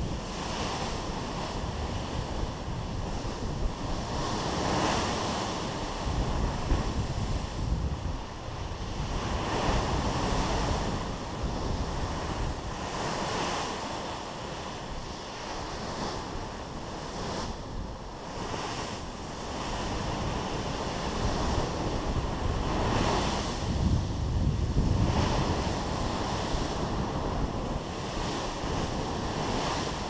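Water rushing and splashing along a cruise ship's hull as the bow wave breaks into spray in big waves, swelling and easing every few seconds. Wind buffets the microphone throughout.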